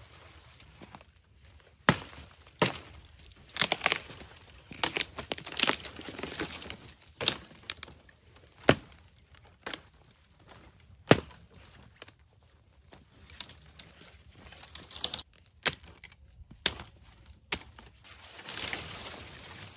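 Dry sticks and brush cracking and crunching: a dozen or so sharp snaps at irregular intervals, with rustling in between.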